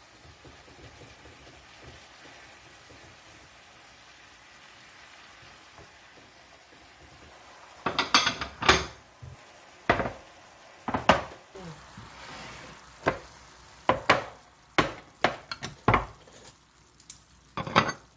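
Low room hiss for about eight seconds, then dishes clattering and clinking as they are handled, about a dozen sharp knocks at uneven intervals.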